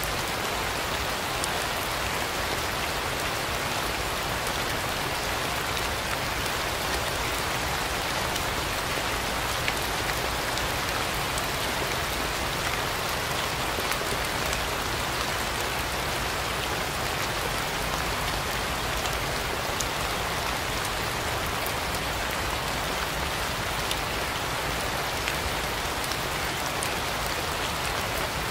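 Steady rain falling, an even hiss with scattered individual drops ticking through it; no thunder.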